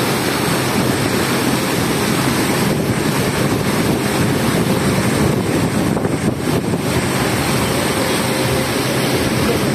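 A tour boat under way: its engine runs steadily while water churns in the propeller wake, with wind buffeting the microphone.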